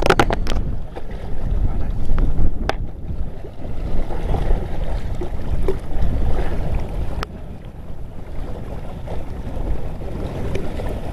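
Wind buffeting the microphone, a loud, uneven low rumble over choppy sea water. A quick run of sharp clicks right at the start, and single clicks a few seconds in and about halfway.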